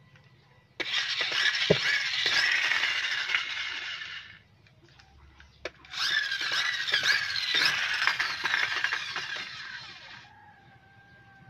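Toy stunt cars whirring twice, each time for about three and a half seconds, as they are pushed and let go to run across a concrete floor, with a few sharp clicks as they hit plastic figures.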